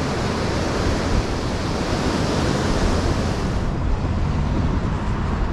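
Ocean surf breaking and washing up the sand, with wind buffeting the microphone. About three and a half seconds in it cuts abruptly to a duller, bass-heavy wind rumble.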